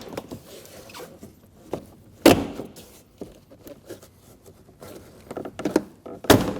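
Door trim panel retaining clips popping free as the panel is pulled away from the door: two sharp pops, one about two seconds in and one near the end, with lighter clicks between.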